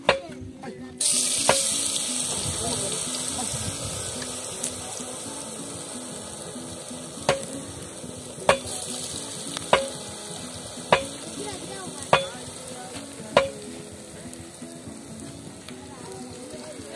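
Dough balls of rice and cassava flour hit hot oil in a metal pot, starting a loud sizzle about a second in that slowly dies down as they fry. Sharp clicks come now and then, about every second from around seven seconds in, over soft background music.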